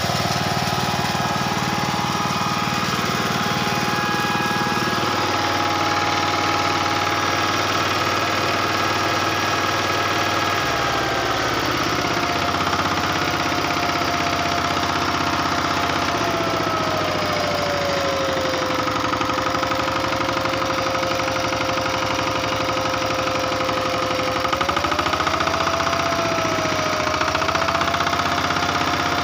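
VST Shakti 130DI power tiller's single-cylinder diesel engine running steadily. Its speed eases down twice, once about ten seconds in and again around the middle, then picks up a little near the end.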